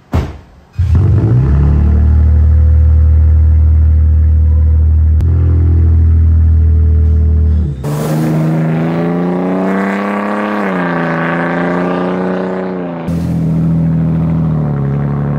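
Toyota Tundra TRD Pro's twin-turbo V6 through a Carven cut-and-clamp muffler, fired up about a second in and settling into a loud, steady deep idle. After a cut, a Tundra pickup on the same exhaust accelerates past, the exhaust note rising in pitch and falling away, then running steadily.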